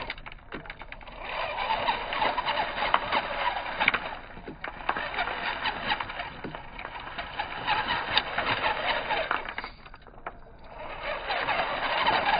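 Small 1/16-scale RC rock bouncer with twin Mofo RC Big Block motors driving in bursts up loose rounded stones. Its tyres scrabble and the pebbles clatter and knock in a dense rattle. The sound dies away briefly just after the start and again about ten seconds in as the throttle eases, then picks back up.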